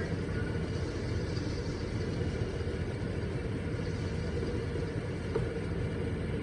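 Hemi engine idling steadily while warming up, just reaching the point where its thermostat opens.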